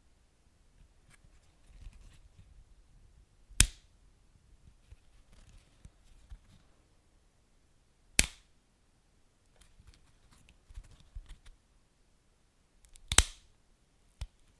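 Wood fire burning in a fireplace: three loud, sharp pops a few seconds apart, with faint small crackles between them.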